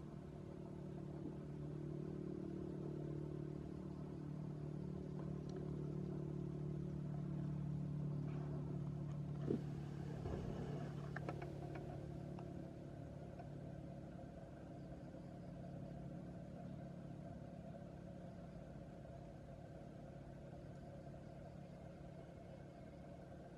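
A steady engine hum that swells to its loudest about halfway through and then slowly fades, with a few sharp clicks near the middle.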